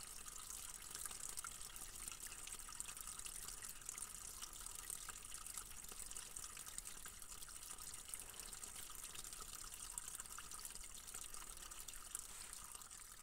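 A shallow spring-fed stream trickling over stones and mud, a steady, faint babble of running water.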